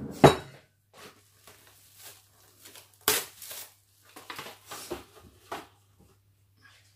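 A glass mixing bowl set down on a table with two knocks, then plastic cling film pulled off its roll, with a loud rip about three seconds in and crinkling after.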